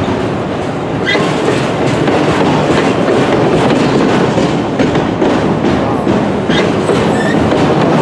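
Freight train of autorack cars rolling past close by: a steady, loud rumble of steel wheels with clickety-clack over the rail joints. A few short high wheel squeaks come about a second in and again near the end.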